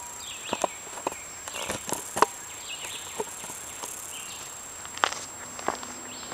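Outdoor ambience: birds chirping now and then over a steady high-pitched whine, with scattered sharp taps and clicks, the loudest about two seconds in and again about five seconds in.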